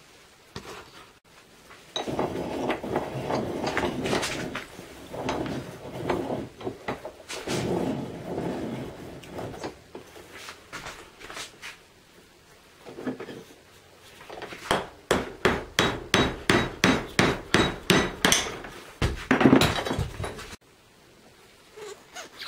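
Bench work on a Citroën DS rear engine mount in a vise. First comes a few seconds of rough, continuous rubbing noise, then partway through a quick run of about a dozen hammer blows at roughly three a second, followed by a louder knock.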